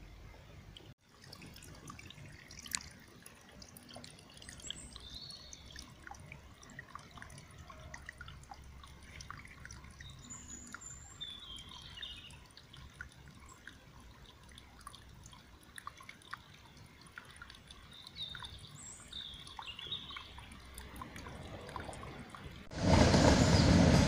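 Shallow stream of an underground brook that has broken out to the surface after rains, trickling and splashing over stones, with birds chirping now and then. About a second before the end, much louder street traffic noise cuts in abruptly.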